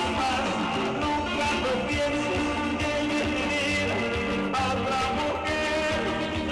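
A live band playing amplified music with guitars over a steady bass and drum beat.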